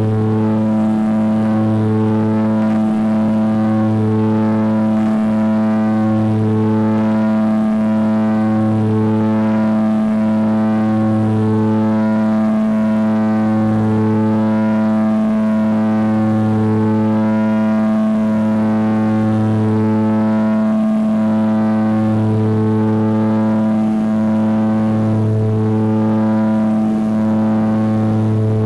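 Propeller aircraft engines droning steadily, heard from inside the cabin, with a slow, regular throb in the low hum.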